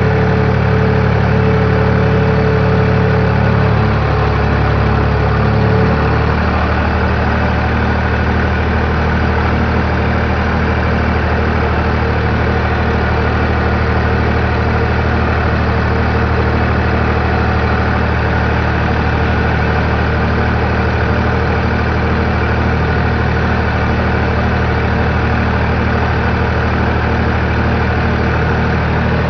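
Farm tractor engine running steadily as the tractor drives slowly, its note dropping a little about five seconds in.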